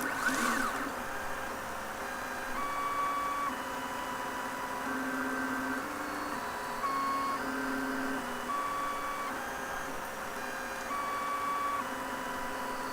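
Stepper motors of a MendelMax 1.5 3D printer whining in steady tones as the axes move. The pitch jumps to a new tone every half second to a second as each move changes speed or direction, over a constant hum. A short sweeping burst of movement comes right at the start.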